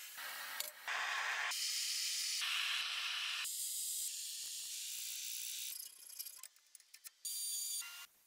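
Metalworking hiss in a string of short edited clips: loud steady hissing that changes abruptly from clip to clip, then drops away about six seconds in to a few faint clicks and one brief hiss near the end.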